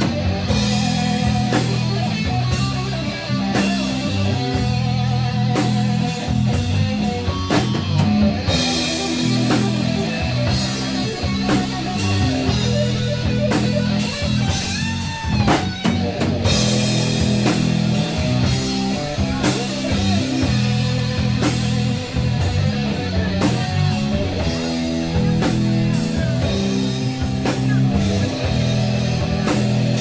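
Live rock band playing loud: electric guitar over a drum kit, with steady cymbal hits.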